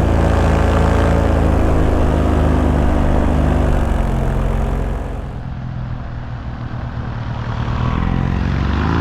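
Paramotor engine and propeller running steadily at power, then throttled back about five seconds in and opened up again near the end.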